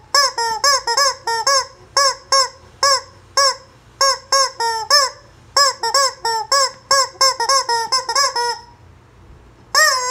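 Yellow rubber screaming-chicken toy squeezed again and again, letting out a rapid run of short squawks that each rise and fall in pitch. The squeezing stops about eight and a half seconds in, and one last squawk comes near the end.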